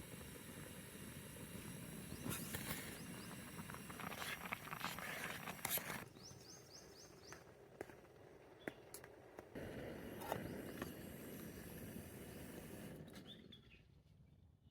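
Outdoor ambience: a steady hiss of noise with scattered clicks and knocks, and a bird calling a quick run of about five short chirps about halfway through.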